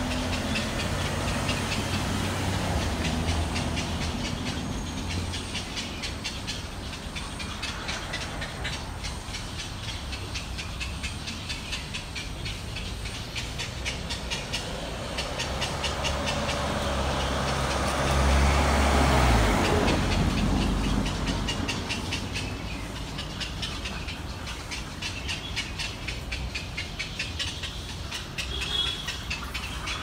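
Street traffic rumble: a low engine sound that grows loudest about two thirds of the way in, then drops away, under a fast, steady, high-pitched pulsing.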